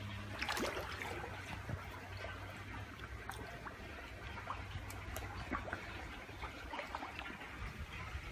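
Water trickling in a koi pond, a steady wash with scattered small splashes and clicks.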